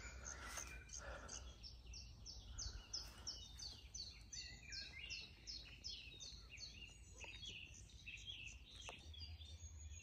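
Faint bird song: a rapid run of short, high, downward-slurred chirps, about three a second, building in the middle and thinning out toward the end.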